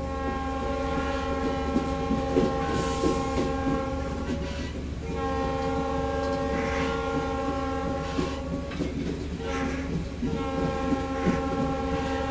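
Train horn held in long blasts, breaking off briefly about five seconds in and again around nine to ten seconds, over the rumble and clatter of a train rolling on the rails.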